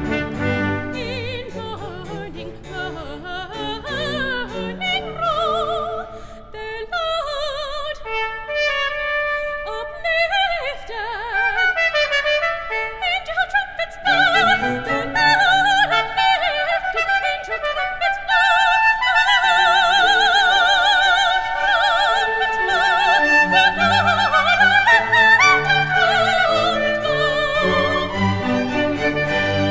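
Soprano singing a florid operatic line with strong vibrato, with fast running passages and long held high notes, over a baroque orchestra that includes trumpet.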